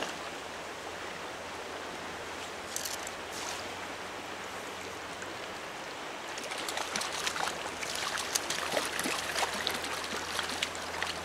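Riffle water rushing steadily, with a run of splashing from about six and a half seconds in as a hooked brown trout thrashes at the surface and is scooped into a landing net.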